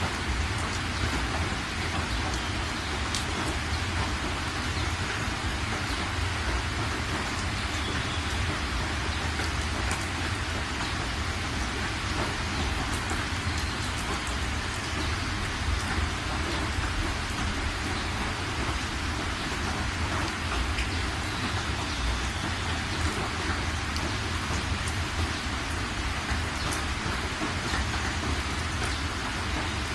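Steady outdoor night ambience: an even hiss over a low rumble, with a few faint ticks.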